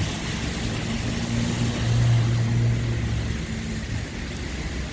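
A motor vehicle's engine hum swelling to its loudest about two seconds in, then fading, over a steady hiss of the wet street.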